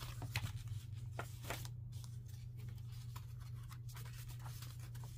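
Soft paper and card rustling with a few light taps as a paper tag is slid into a file-folder pocket and thick journal pages are turned by hand, over a low steady hum.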